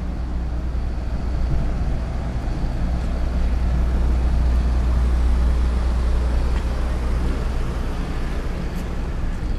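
Ferry Tokashiki's engines running at the berth, a steady low hum with an even background noise of the harbour.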